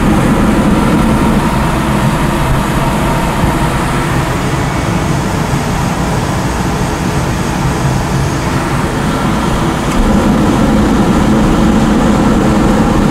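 Sonofresco 1 kg fluid-bed coffee roaster running mid-roast: a steady rush of hot air from its blower churning the beans in the chamber, growing louder and fuller about ten seconds in.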